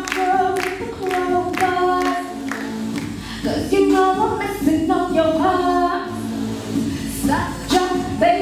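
A woman singing unaccompanied into a handheld microphone, holding long, sliding notes. A sharp percussive beat, about two a second, runs under the voice for the first few seconds and returns near the end.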